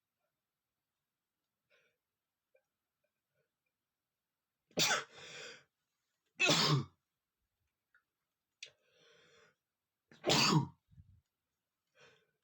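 A man sneezing strong three times, about five, six and a half and ten and a half seconds in, with quieter breathy inhales or sniffs between the sneezes.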